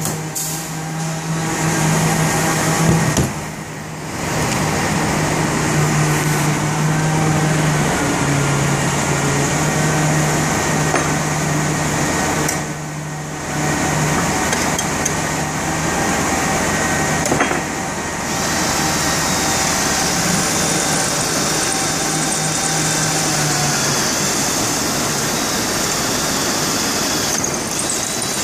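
Steady motor-driven machine hum with a broad rushing noise, dipping briefly a few times.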